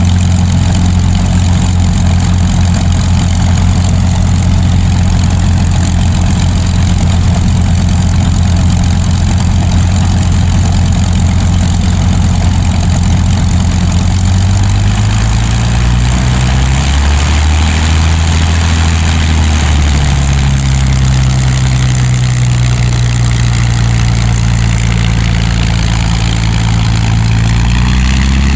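Twin Rolls-Royce Merlin V12 piston engines of a de Havilland DH.98 Mosquito running at low power with propellers turning, a steady low engine note. About halfway through, the engine note shifts in pitch and then settles to a steady note again.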